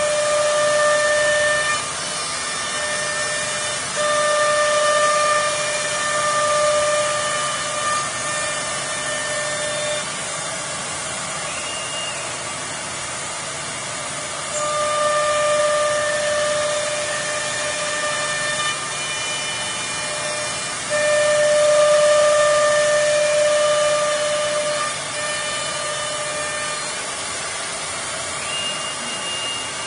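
Four-spindle CNC router running: a steady hiss underlies a pitched whine that comes and goes in stretches of two to four seconds, louder while it sounds.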